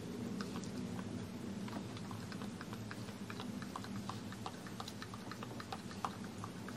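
A Shepherd-mix puppy licking a person's hand: a fast irregular run of small wet clicks and smacks, over a low steady hum.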